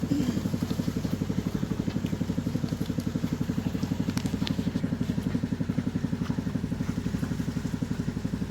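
A small engine running steadily at idle with a rapid, even chug.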